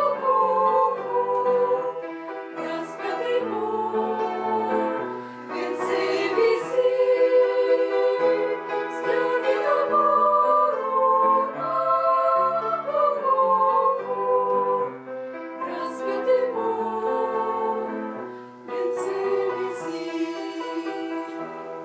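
Female voices singing a slow song together in harmony, with long held notes.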